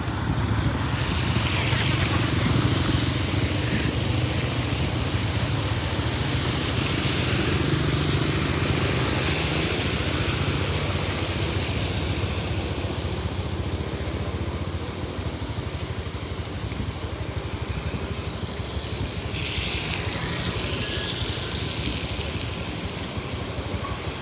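Motorcycles and minibuses driving through shallow floodwater: small engines running as tyres swish and splash through the water. Several rushes of spray come and go as vehicles pass.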